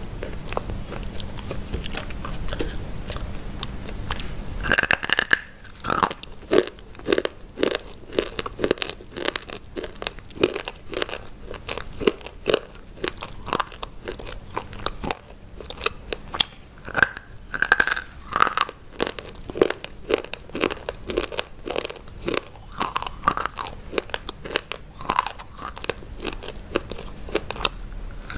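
Close-miked biting and crunching of hard white chalk-like sticks. After a sharp snap about five seconds in, crisp crunches come several times a second.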